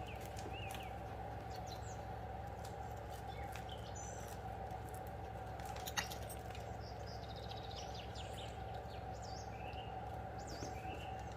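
Birds chirping in short, scattered calls over a steady background hum, with one sharp click about six seconds in.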